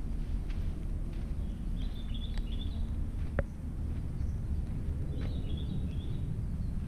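Outdoor ambience: a steady low rumble, with a small bird chirping in two brief flurries and a single sharp click near the middle.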